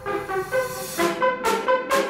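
Background music: a melody of held notes, joined about a second in by a steady beat of sharp hits a little over two a second.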